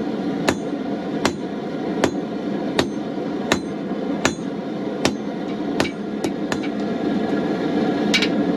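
Hand hammer striking hot steel on an anvil, about one blow every three-quarters of a second, each with a bright metallic ring, the blows coming quicker near the end. A steady gas forge burner runs underneath.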